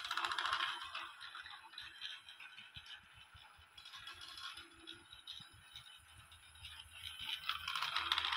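Battery-powered toy train running on a plastic track, its wheels and wagons rattling and clicking along the rails, getting louder near the end as it passes close by.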